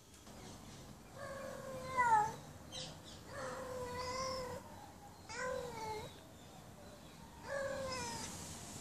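Female domestic cat in heat making her mating call: four drawn-out meowing calls, each about a second long and dropping in pitch at the end.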